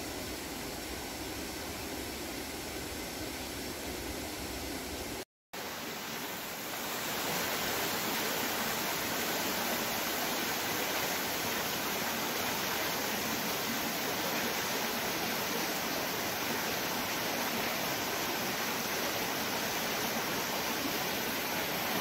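Steady rush of flowing water, first from a stone-lined water channel. After a short break about five seconds in, a louder, hissier rush of water swells over about two seconds and then holds steady.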